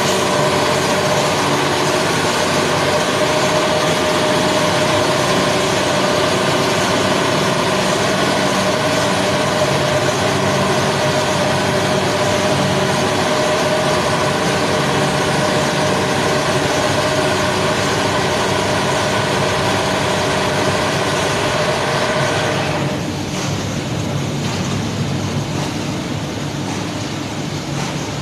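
An engine running steadily with a constant pitch, as at idle. About 23 seconds in, the higher part of the sound drops away and it becomes a little quieter.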